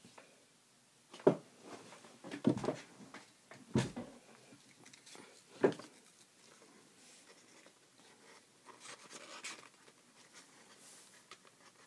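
Folded origami paper handled by hand: a few short, sharp taps and crinkles spread over the first six seconds, then softer paper rustling near the end.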